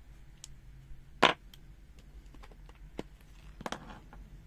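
Handling noise on a desk: a sharp knock about a second in, then a lighter tap and a short cluster of clicks and rustling near the end, as a AA battery just measured with the multimeter probes is set down on the mat.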